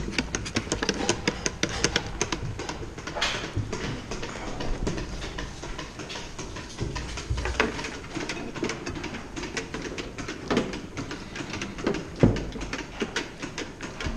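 Close handling noise of a plastic calf-feeding bucket and its rubber teat being fitted and hung on the metal bars of a calf pen: a run of quick clicks and knocks, thickest in the first few seconds, with a few louder thumps.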